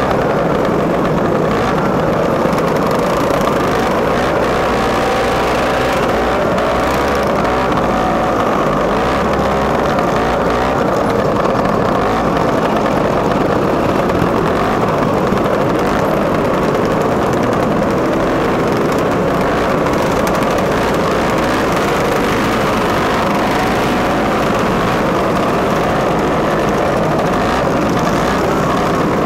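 A pack of vintage Lambretta scooters' two-stroke engines running together while riding, heard from one of the scooters: a steady, loud buzz of several engines at slightly different, wavering pitches. Wind rumbles on the microphone.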